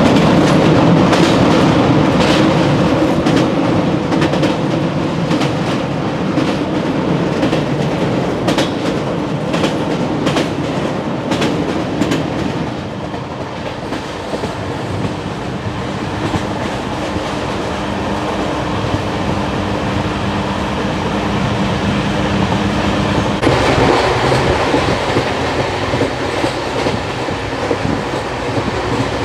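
Passenger train running along the track: a steady rumble with wheels clicking over rail joints. The clicks are dense in the first half, and the sound changes character about two-thirds through.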